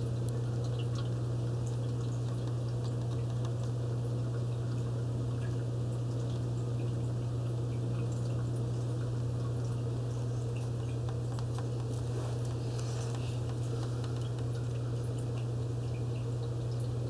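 Aquarium filter running: a steady low hum with water trickling and dripping into the tank.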